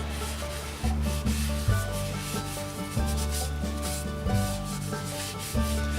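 Repeated rubbing strokes on the wooden handle of the marking knife, over background music with a low bass line that steps from note to note.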